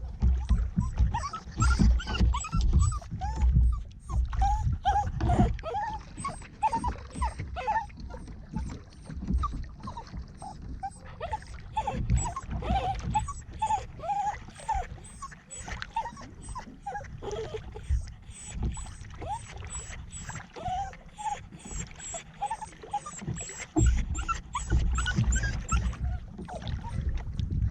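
A dog whining and whimpering over and over in short, high squeaks, over a low rumbling noise from the kayak on the water.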